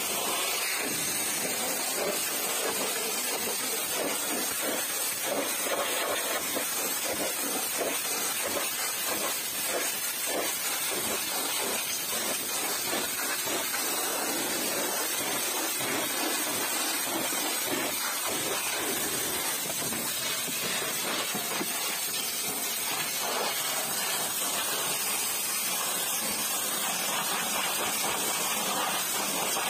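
High-pressure washer jet spraying against a car's side panels, side step and wheel, blasting off mud: a steady hiss with water spattering off the surfaces, the spatter varying as the wand moves.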